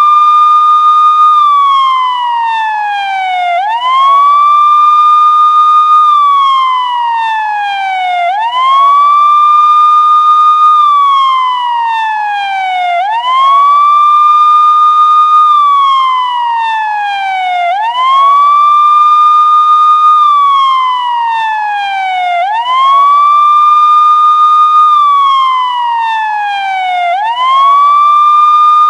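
Police siren wailing: the tone rises quickly, holds high for a moment, then glides slowly down, over and over about every five seconds.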